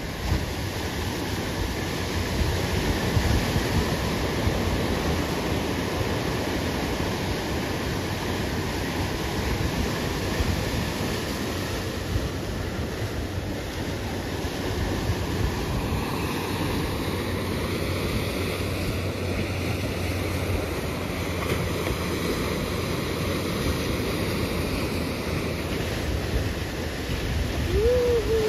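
Ocean surf breaking and washing in steadily, with wind on the microphone. Near the end there is a short call that rises and then falls.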